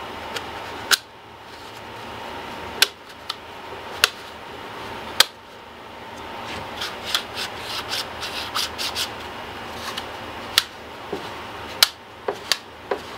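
Husqvarna 50 Rancher chainsaw's recoil starter being rewound by hand against its return spring, which is stiff to wind: sharp plastic clicks about a second or more apart, with rubbing and a quicker run of small ticks in the middle.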